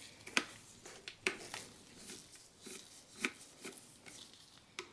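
Light, irregular clicks and taps of a computer optical drive and its mounting screws being handled, the sharpest about half a second, a second and a quarter, and three and a quarter seconds in.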